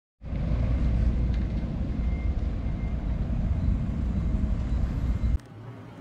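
Outdoor city ambience: a steady, loud low rumble of the kind road traffic makes, which cuts off suddenly about five and a half seconds in.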